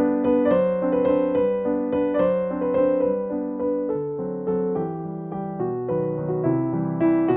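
Background piano music: a gentle solo piano piece with steadily repeating notes.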